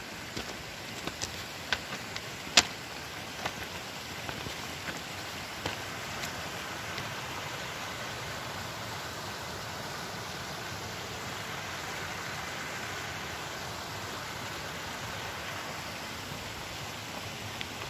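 Footsteps on loose limestone scree, sharp clacks of stones underfoot over the first several seconds, over a steady rushing hiss from a small mountain stream that grows a little louder after the clacks thin out.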